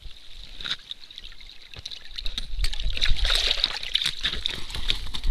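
Water splashing and streaming off a large pike as it is hauled up out of a hole in the ice. The splashing and trickling sets in about two seconds in.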